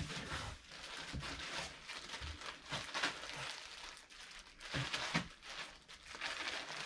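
Plastic poly bags crinkling and rustling in an irregular run as packaged items are handled and pulled open.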